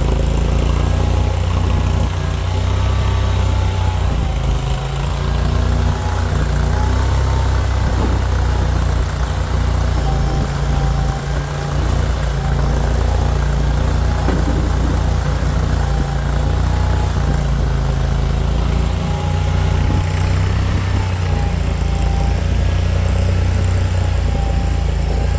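Mini skid steer engine running steadily, with a fainter whine that wavers up and down in pitch.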